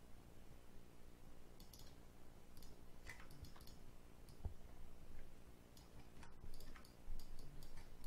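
Irregular, scattered clicks of a computer mouse and keyboard, bunching together near the end, over a faint steady low hum.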